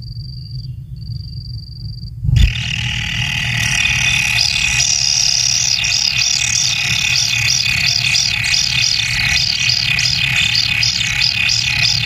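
Kingfisher nestlings in the nest burrow. First a thin, high whine held in long notes, then a thump about two seconds in. After the thump the brood breaks into loud, dense begging calls that repeat about twice a second toward the end, as a parent arrives with a fish.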